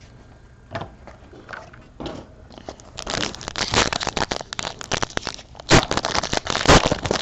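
Plastic trading card pack wrapper being handled, then crinkled and torn open: a few light clicks, then dense crackling from about three seconds in.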